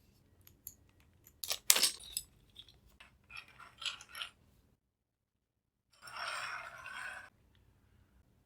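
Keyboard and packaging handled: a run of hard clicks and knocks, the loudest about one and a half seconds in, then a scraping rustle lasting about a second.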